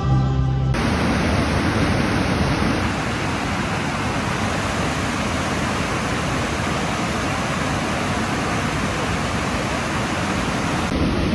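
Background music cuts off about a second in, giving way to a steady, loud rushing noise with no pitch.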